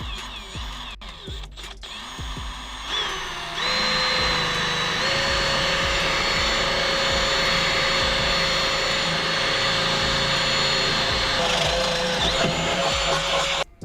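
Electric drill boring pin holes through the factory flooring of a golf cart's rear footrest with the supplied drill bit: a steady whine that starts about three and a half seconds in, steps up slightly in pitch soon after and cuts off suddenly near the end.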